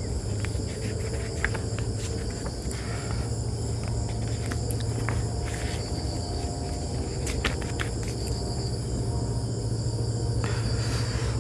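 Steady high-pitched chirring of crickets, with a low steady hum beneath and a few faint paper rustles and clicks as a book's pages are handled.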